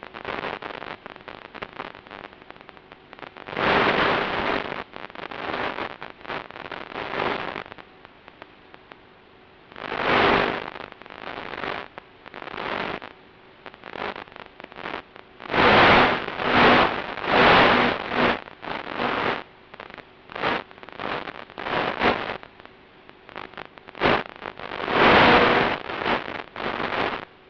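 Irregular bursts of rushing, crackling noise over a steady hiss, with a faint hum in the louder bursts, on the audio of an RC plane's FPV camera feed in flight.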